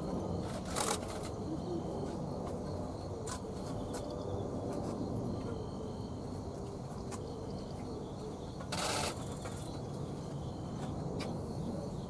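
Steady low outdoor background rumble with faint insect chirring. Two short harsh bursts stand out, one about a second in and a longer one of about half a second around nine seconds in.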